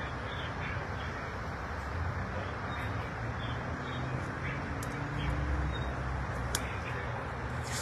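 Steady parkway traffic noise, with a low vehicle rumble that swells about five seconds in.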